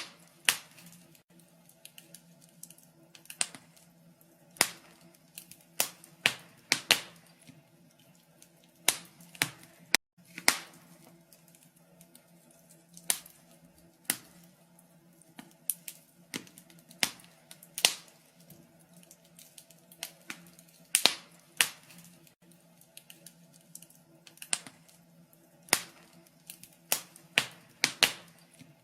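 Wood fire burning in a fireplace, crackling with irregular sharp pops and snaps, one or two a second at uneven spacing.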